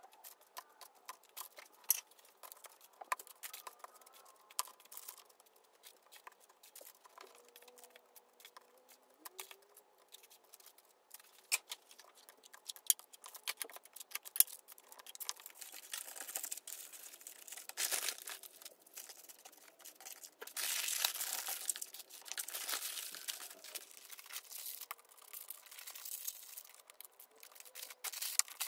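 Hands handling food and sweets as they pack them into a box lined with baking paper: paper rustling and crinkling, with light clicks and taps as plastic dessert pots and pastries are set down. Around two-thirds of the way through comes a louder stretch of crinkling and tearing packaging.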